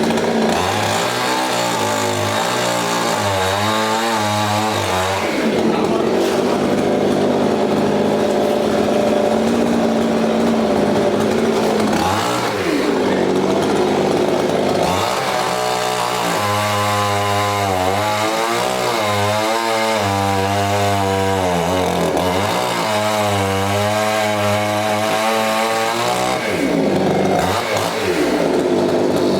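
Two-stroke chainsaw cutting a coconut palm. Its engine pitch dips and rises again and again as the chain bites, with spells of steadier running between cuts.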